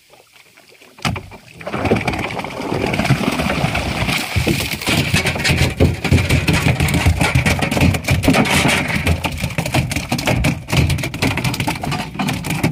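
Small fishing boat at sea: a steady rush of motor and wind noise with many sharp knocks, coming in loud about two seconds in after a brief lull, while a yellowfin tuna is gaffed and hauled aboard.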